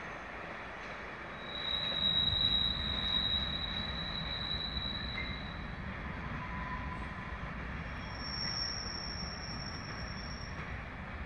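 Wheels of empty car-transporter freight wagons squealing against the rail on a tight curve over a low rumble of the rolling train. One high squeal sets in about two seconds in and holds for about three seconds, and a second, higher squeal follows near the end.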